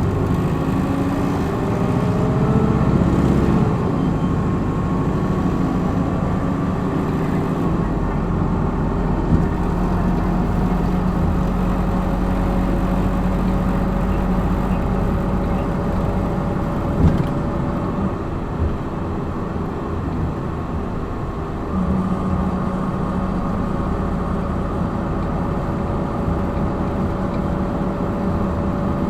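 Hino Blue Ribbon city bus driving under power, heard from inside the cabin: engine and drivetrain pitch rising as it accelerates, changing about three and a half seconds in, then running steadily. A steady hum comes in again late on, with a couple of short knocks along the way.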